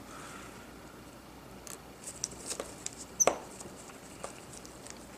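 Faint small clicks and taps of tools and tiny parts being handled during iPhone repair work, a few scattered ticks with one sharper click about three seconds in.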